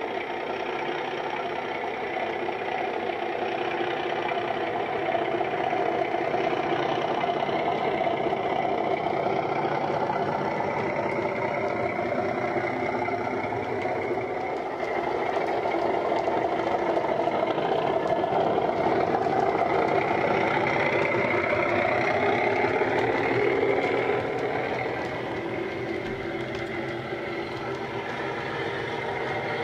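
Bachmann Class 37 model locomotive's Coastal DCC sound decoder playing a heavy diesel engine sound through its EM1 speaker as the train runs, the engine note rising and falling. It is loudest through the middle stretch and eases off a few seconds before the end.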